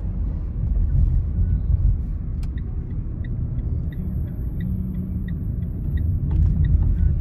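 Car cabin rumble from engine and road noise as the car drives, steady throughout, with faint light ticks at a regular pace in the middle.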